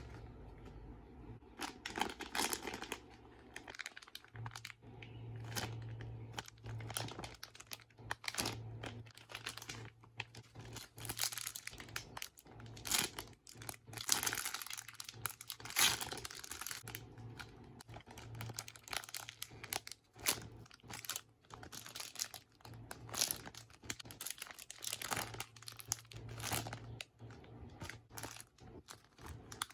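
Plastic packaging crinkling and rustling in irregular bursts as squishy toys in their bags are handled, with a low hum underneath.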